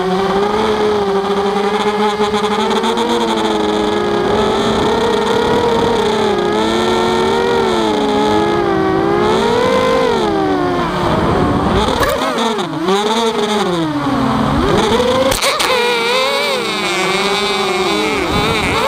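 Walkera Rodeo FPV quadcopter's motors and propellers whining, several tones at once. The pitch holds fairly steady at first, then swoops up and down repeatedly in the second half as the throttle is worked.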